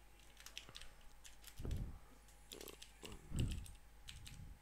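Typing on a computer keyboard: a quick, irregular run of keystroke clicks as a line of text is typed, with a couple of louder low, soft thumps in the middle of it.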